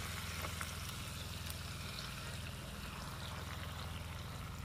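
Gravy poured in a steady stream from a plastic jug onto lamb chops in a frying pan: a soft, even pouring trickle over a steady low hum.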